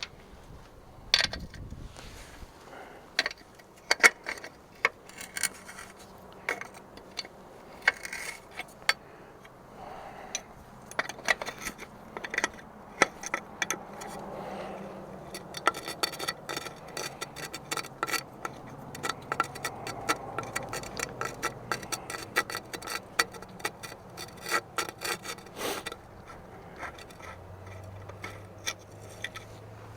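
Hand tools and metal parts clicking, knocking and scraping during work on a removed turbocharger and its oily fittings, in many short irregular strokes. A low steady hum comes in near the end.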